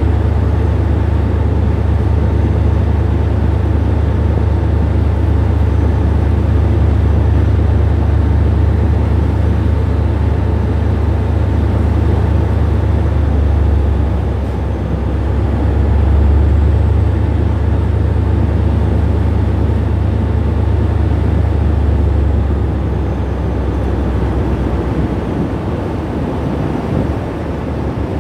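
Anchor-handling tug supply vessel's engines and propellers running with a loud, steady low drone. It dips briefly about halfway through, then eases off over the last few seconds.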